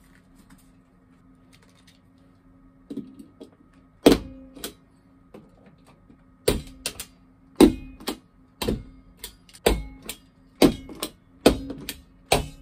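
Handheld stapler driving staples through 3D-printed plastic base parts into plasterboard: a run of sharp snaps, roughly one a second, starting about four seconds in.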